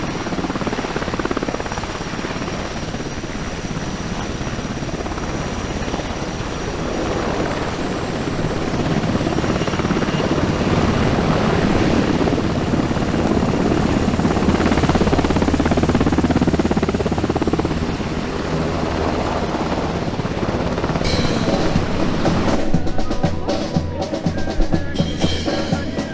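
Helicopter flying over, a steady rotor and engine noise that grows louder in the middle and then fades. Near the end, drum-led music starts with sharp, regular beats.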